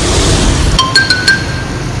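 A loud rushing noise that stops under a second in, followed by a quick cluster of short, high chiming tones.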